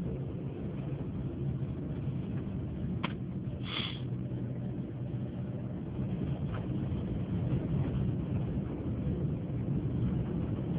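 Steady low background rumble, with a short sniff about four seconds in.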